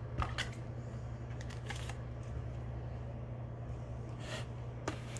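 Trading cards being handled and slid through the fingers: a few scattered soft clicks and rustles over a steady low hum.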